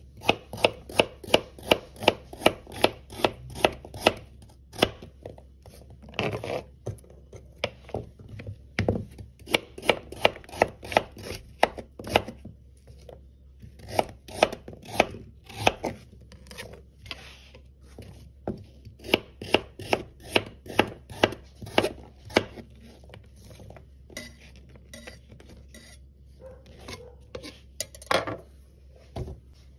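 Chef's knife slicing carrots into rounds on a plastic chopping board: quick runs of crisp cuts, about four a second, each ending in a tap of the blade on the board, with short pauses between runs.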